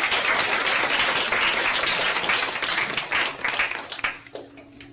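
Audience applauding. The clapping dies away about four seconds in.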